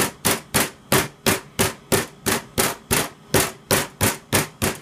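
Meat tenderizer mallet pounding thin slices of beef through plastic wrap on a wooden cutting board: a steady run of sharp blows, about three a second.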